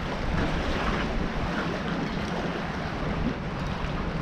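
Steady wind rushing over the microphone, with choppy water washing below.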